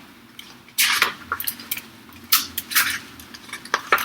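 Several short, sharp rustles and crinkles from a picture book being handled: about a second in, twice around two and a half seconds, and once more near the end.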